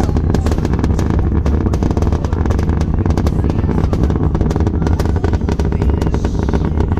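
Space Launch System rocket in ascent, its two solid rocket boosters and four RS-25 core-stage engines heard as a steady, loud low rumble thick with rapid crackling.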